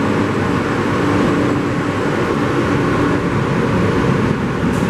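New York City subway train running, heard from inside the car: a steady rumble of wheels on the rails with a low hum.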